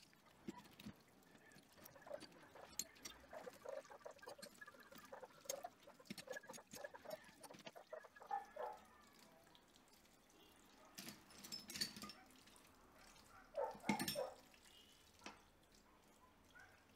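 Wet metal bicycle parts being handled and washed in a plastic basket: water splashing and dripping with light metal clinks, and a couple of louder splashes in the second half.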